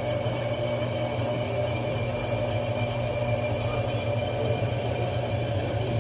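Electrolux LTC10 10 kg washing machine running its spin cycle: a steady hum and whir with a constant droning tone. The noise comes from a worn drain pump with play in it.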